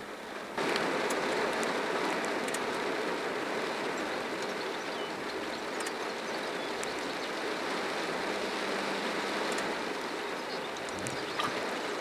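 A steady rushing noise, like running water or wind, that jumps up suddenly about half a second in and then holds level. A few faint, very brief high ticks sit on top of it.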